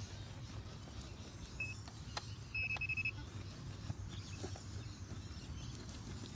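Handheld metal detector pinpointer probing in loose soil: a short high beep about a second and a half in, then a longer, slightly stuttering high beep a second later, signalling metal close to its tip. A single sharp click comes between the beeps, over a low steady rumble of handling noise.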